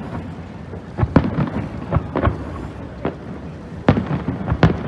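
Fireworks shells bursting in quick succession: about seven sharp bangs, each trailing into a low rumbling echo.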